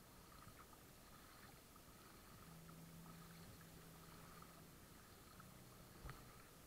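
Near silence from a kayak on the water: faint water sounds against the hull, with a low hum that comes and goes and a single knock about six seconds in.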